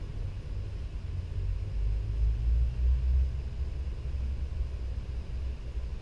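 Low, uneven rumble that swells for a second or two about two seconds in, then settles back.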